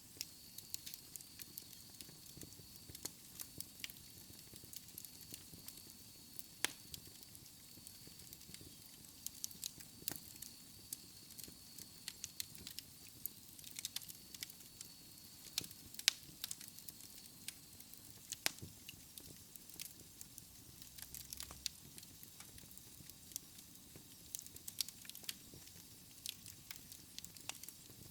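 Wood fire crackling in a fireplace: irregular sharp pops and snaps over a soft steady rush of flames. A faint high steady tone runs beneath it for about the first half, then fades out.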